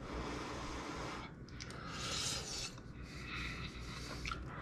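Quiet eating sounds: a metal spoon scraping and rubbing in a soup bowl, with a breathy slurp from the spoon about two seconds in.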